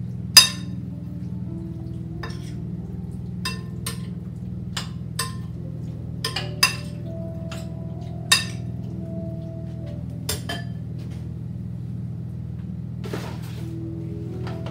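A metal fork clinking against a glass bowl as beef cubes are stirred in their marinade: a string of sharp, ringing clinks at irregular intervals, the loudest about half a second in. A brief rustle comes near the end.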